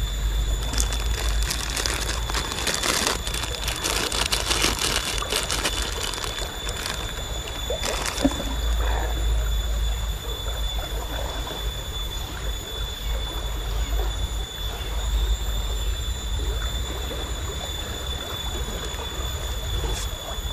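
Shallow river running steadily over rocks, with a plastic bag crackling as it is handled during the first several seconds.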